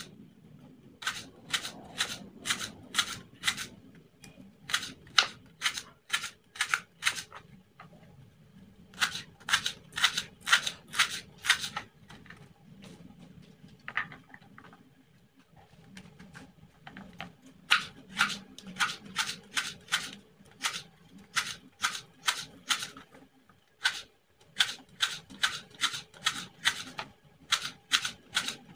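Kitchen knife slicing lemongrass stalks finely on a wooden cutting board: sharp knocks of the blade on the board, about three a second, in runs of a few seconds with short pauses between.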